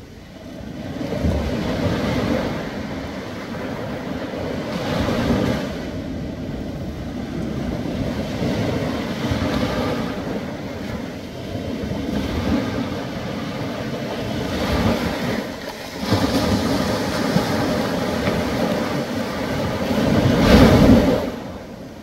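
Small ocean waves breaking on a sandy beach and washing up the shore: a steady surf wash that swells with each wave, loudest near the end.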